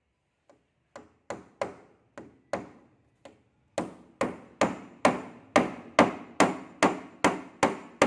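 Hammer blows on wood during carpentry repair of a door: a few scattered, lighter taps at first, then a steady run of harder strikes, about two and a half a second, growing louder toward the end.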